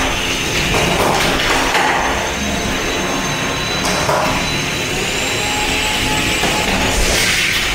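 Spinning weapons of two antweight combat robots, a drum spinner and a belt-driven vertical spinner, running with a steady high whine, one whine rising a little in pitch past halfway. A few knocks and scrapes come as the robots drive and touch.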